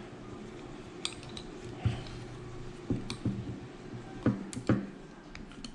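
Parts of a paintball marker being handled and taken apart by hand: a few light, scattered clicks and knocks of small metal and plastic pieces.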